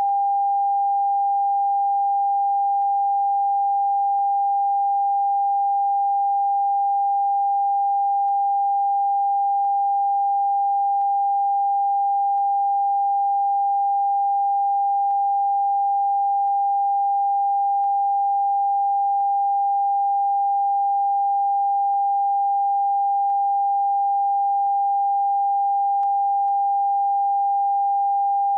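Television end-of-broadcast test tone: a single steady pure beep, held unbroken at one pitch, the signal that the station has gone off the air and is showing its test card.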